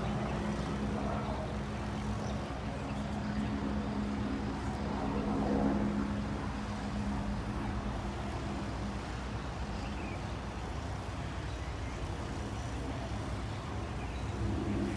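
Steady rumble of passing street traffic. A faint held low note fades out about seven seconds in.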